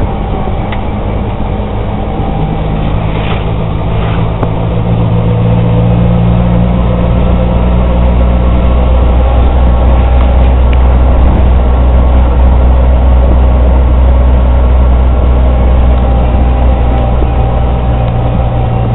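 Auto-rickshaw's small engine running as it drives, heard from inside the open cabin: a steady low drone with road and wind noise, growing louder over the first few seconds.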